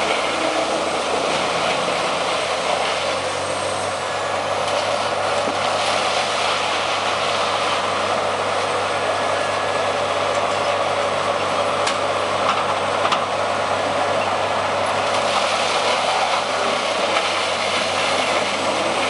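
Morbark 30RXL whole-tree chipper running steadily as it chips logs fed by its loader crane into biomass chips: a loud, dense machine noise with a single sharp click partway through.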